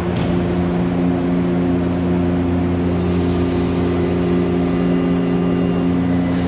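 São Paulo Metro Fleet J train standing at the platform with its doors open, its onboard equipment giving a steady low hum. About three seconds in, a sudden hiss of compressed air starts and slowly dies away.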